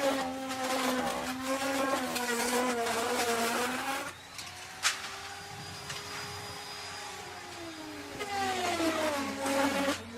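Electric wood router running and cutting wood. Its motor whine sags in pitch under load, with a rasping hiss from the bit, for the first few seconds. About four seconds in it eases and rises in pitch as the bit runs free, then it sags again as the bit bites in near the end. One sharp tick about five seconds in.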